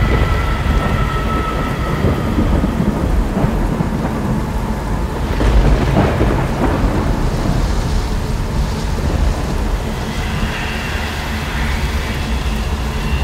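Thunderstorm sound effect: steady rain with deep rolling thunder, swelling louder about halfway through.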